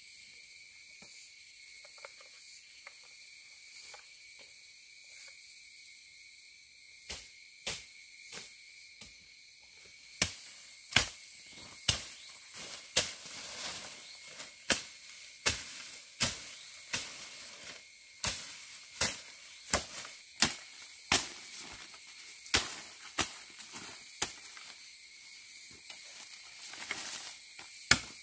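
Machete chopping: sharp strikes begin about a quarter of the way in and settle into a steady rhythm of roughly one stroke a second. Insects buzz steadily underneath with a high, even tone.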